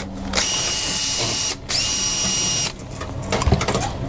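Handheld power drill running in two bursts of about a second each, a steady high whine that spins back up after a short break. Then light metallic clicks and rattling as fittings are handled.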